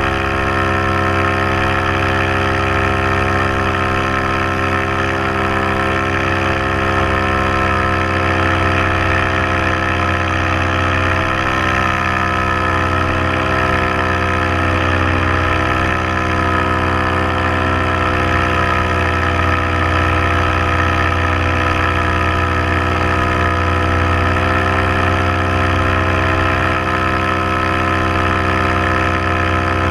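Paramotor engine and propeller running steadily at constant power in flight.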